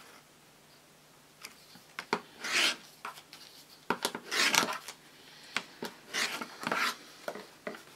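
Rotary cutter rolling through fabric on a cutting mat in several short cutting strokes, with light clicks between them.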